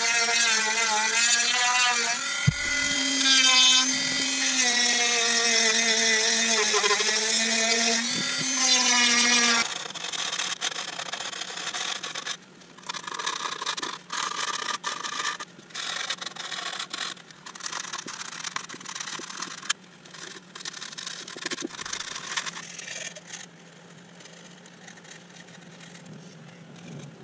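A Dremel-type rotary tool with a small sanding drum grinds the eyelet of a beech bowl. Its high whine wavers in pitch as it is pressed into the wood, and it stops about ten seconds in. After that comes quieter, irregular scratching as sandpaper is rubbed by hand over the cut edge in short strokes.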